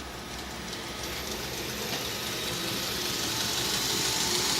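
Double wheel belt knife grinder with 80 grit belts running and speeding up on its VFD. A steady hiss and a thin high whine grow louder from about a second in.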